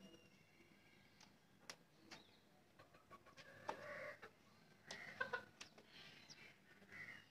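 Desi country chickens clucking faintly in a coop, a few short calls starting about halfway through and again near the end, with some light clicks earlier on.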